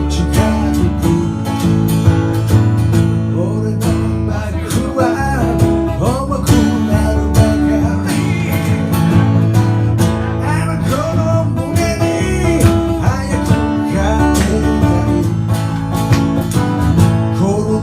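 Live band music: strummed guitar over bass notes, playing on without sung lyrics to close the song.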